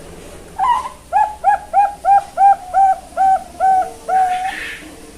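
Young zebra dove (perkutut bangkok) cooing: an opening note, then a quick run of about nine short coos, about three a second, ending in a longer held note.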